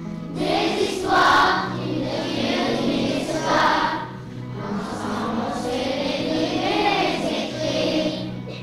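A class of children singing a French-language song together in unison, over steady instrumental accompaniment with sustained low notes.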